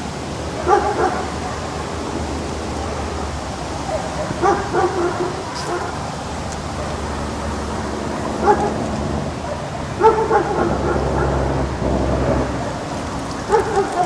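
A dog barking in short bouts of one to a few barks, every three or four seconds, over a steady rumbling background noise.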